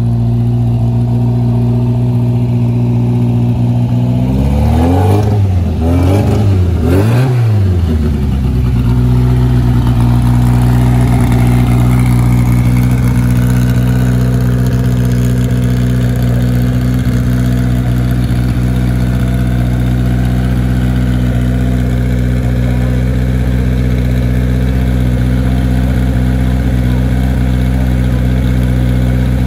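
Renault 8S rally car's rear-mounted four-cylinder engine idling through its sports exhaust, blipped twice in quick succession about five and seven seconds in, then settling back to a steady idle.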